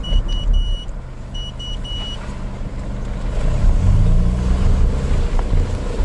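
Honda CR-V rear differential crackling as the car creeps round with the steering wheel turned fully right, over the engine running, which rises briefly about halfway through. Crackling at full steering lock is the sign of a worn rear differential that an oil change does not always cure.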